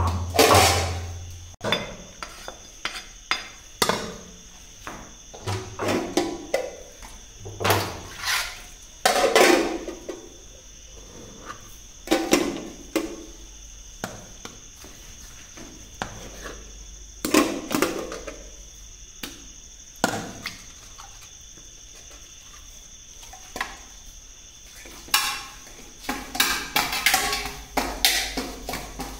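Stainless-steel pots, lids and a plate clinking and knocking as they are handled, a couple of dozen separate hits, some ringing briefly, busiest near the end. A steady high-pitched whine runs underneath.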